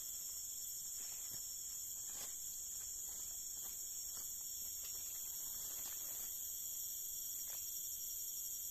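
Steady insect chorus, a continuous high buzz in several bands, with faint scattered rustles and clicks from someone moving on leaf litter and handling a fishing rod.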